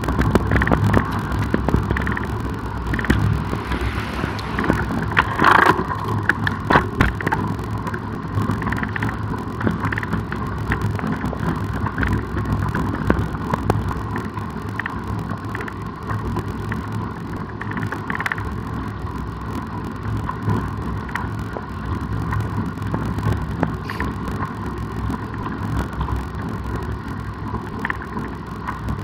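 Steady wind and road noise from riding a road bicycle, with a cluster of sharp clicks or knocks about five to seven seconds in.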